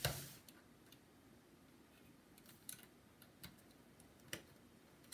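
Faint, scattered small clicks and ticks of a precision screwdriver and fingers working the retaining screw on a laptop's Wi-Fi card, after a single knock at the start.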